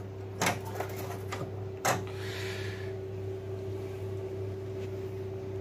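Light plastic clicks as an LED backlight strip is pressed into a TV's plastic back chassis: two sharp clicks about a second and a half apart with a short scrape after the second, over a steady low hum.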